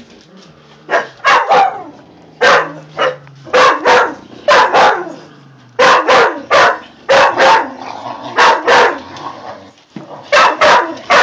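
Clumber spaniels barking during rough play: many short, sharp barks, often in quick pairs, every second or so, with a brief pause shortly before the end.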